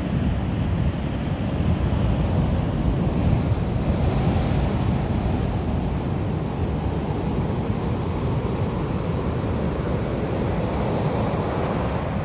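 Ocean surf breaking and washing up a sandy beach: a steady, continuous rush of waves, with wind rumbling on the microphone.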